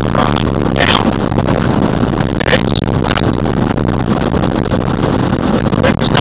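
Diamond DA20 Eclipse's four-cylinder piston engine and propeller running, heard loud and steady from inside the cockpit as the plane rolls down the runway. A few brief higher-pitched swishes sound over it.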